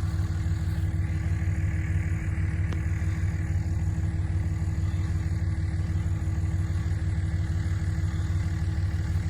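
Motor vehicle engine running steadily at idle, a constant low drone with a steady hum above it.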